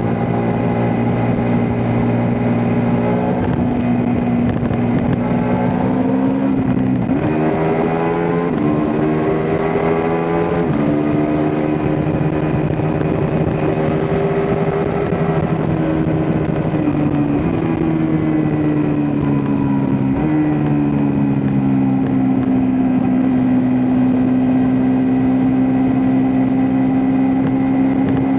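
Ducati Multistrada V4 S motorcycle's V4 engine under way: the engine note climbs through a few quick gear changes, holds steady, eases down, then settles into a steady drone after another shift near the end.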